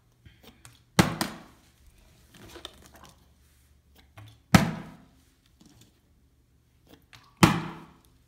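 A plastic water bottle being flipped and landing on a ceramic tile floor: three sharp thunks about three seconds apart.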